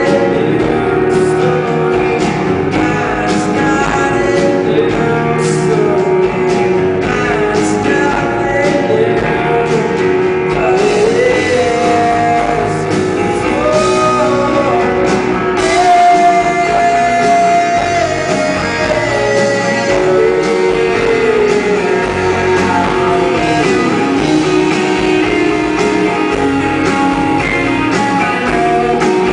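Rock band playing a song live, a male voice singing over guitar and drums.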